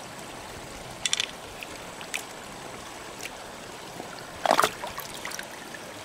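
Shallow stream water trickling steadily, with a few light clicks and splashes as hands work the opened mussel shells and pearls, the loudest about four and a half seconds in.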